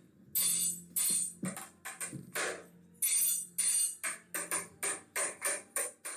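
Instrumental electronic music with a drum-machine beat and synthesizer.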